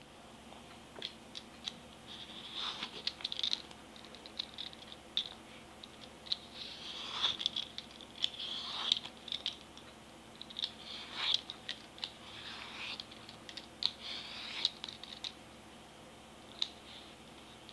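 Y-shaped vegetable peeler scraping the skin off a ripe mango in runs of short strokes with small clicks between them, thinning out near the end.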